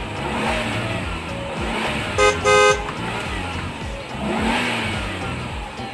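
Background music with a steady beat. About two seconds in, a car horn gives two short beeps in quick succession.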